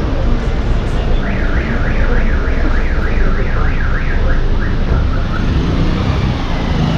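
Busy street traffic rumble with motorcycles and cars, and over it a warbling electronic alarm that rises and falls about three times a second for a few seconds, starting about a second in and then dying away.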